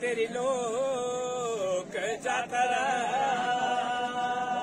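Men singing a Nanda Devi Raj Jat devotional folk song unaccompanied, in a slow chant-like melody. The line breaks off briefly about two seconds in, then settles into a long held note.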